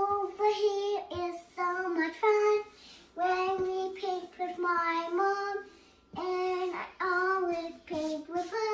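A young girl singing a made-up song in a high voice, in short held phrases with brief pauses between them.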